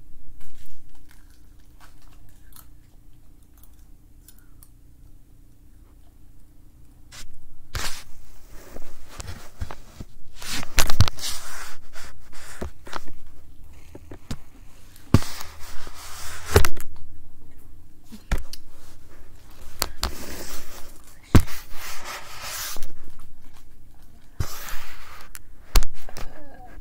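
Soft chewing and small spoon clicks for the first several seconds, then from about eight seconds in, loud handling noise on a laptop's built-in microphone: scraping, rustling and repeated sharp knocks as the laptop is picked up and moved around.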